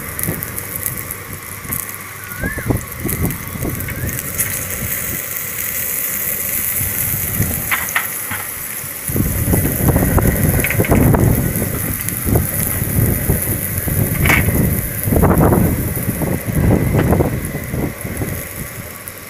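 Wind gusting and buffeting on the microphone in irregular low rumbles, heaviest in the second half, over a steady high hiss.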